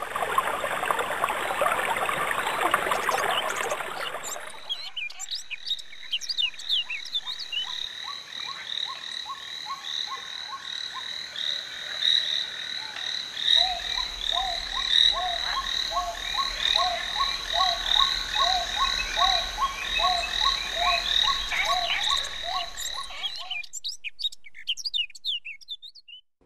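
A frog chorus: repeated short rising croaks about once a second, with higher chirping calls over them. It opens with a few seconds of rushing noise, and the calls thin out and fade away near the end.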